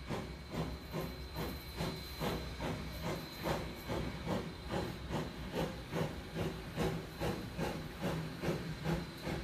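Steam locomotive VC2 under way, its exhaust chuffing in a steady rhythm of about three chuffs a second with a hiss of steam.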